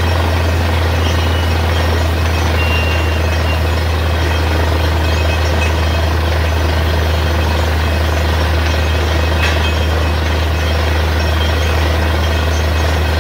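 Heavy engine of a borewell drilling rig running steadily at constant speed, with a deep, unchanging hum under a dense mechanical noise.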